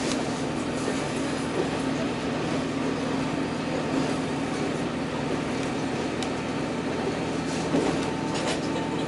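Steady running noise inside a JR Bantan Line diesel railcar travelling at speed: engine drone and wheel-on-rail rumble, with a few light clicks.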